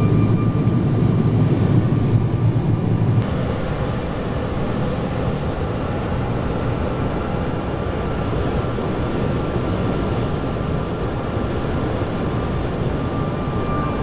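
Steady engine and road noise inside a moving small jeep's cabin, a low rumble that drops away suddenly about three seconds in and then runs on a little quieter.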